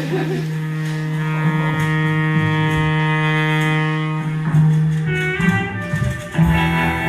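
Scene-change music of sustained held chords, changing chord a little past the halfway point and again near the end.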